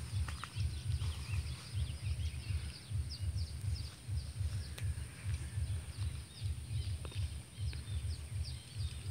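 Outdoor ambience with many quick high bird chirps and a steady high-pitched insect drone, over a louder low rumble that rises and falls unevenly.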